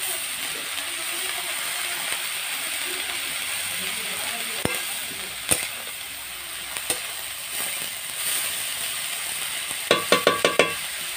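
Food frying in oil in a kadai, a steady sizzle with stirring and a few scattered clicks. About ten seconds in comes a quick run of about five ringing metal clinks.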